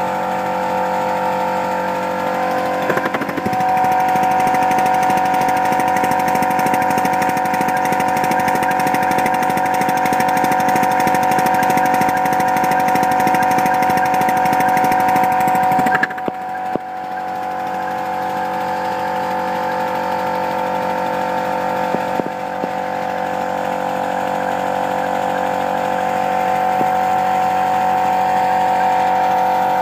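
Polly Trojan 5-inch gauge model locomotive running fast on compressed air: a rapid stream of air exhaust beats from the cylinders and clattering valve gear and rods, over a steady whine. It eases off briefly about halfway through, then picks up again.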